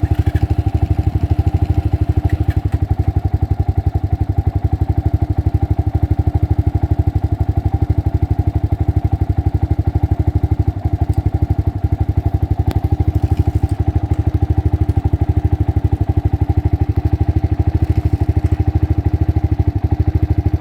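Honda ATC 250SX three-wheeler's single-cylinder engine idling steadily at an even, unchanging pace.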